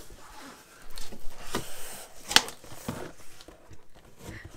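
Box packaging being handled and opened, rustling and scraping irregularly, with one sharp knock a little past halfway.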